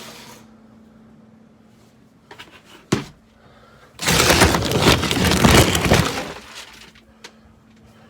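A single knock, then a loud, dense clatter of hard objects lasting about two seconds.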